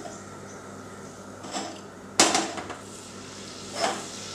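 Metal knocks and clinks of a non-stick achappam (rosette) mould being handled in the batter bowl, the loudest about two seconds in, over a low steady hiss of hot oil. Near the end the batter-coated mould goes into the oil and it starts to sizzle.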